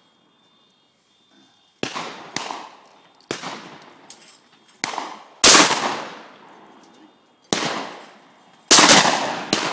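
Shotguns firing at a clay shoot: about nine sharp reports in under eight seconds, uneven in loudness. The loudest come about halfway through and near the end, and each trails off in a fading echo.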